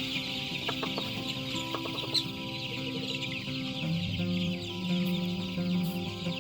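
Chickens clucking, with a dense high chirping chatter throughout and a louder low call from about four seconds in. Soft background music plays underneath.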